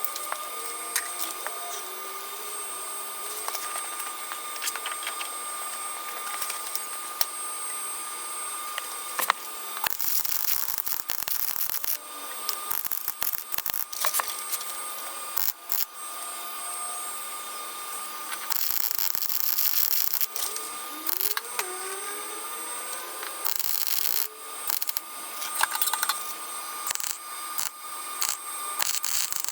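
Workshop tool noise: a steady high whine throughout, with squeaky scraping and rubbing, and three short louder spells of a power tool running.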